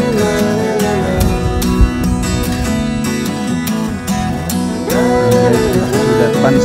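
Background music led by acoustic guitar, with a melody line that slides between notes.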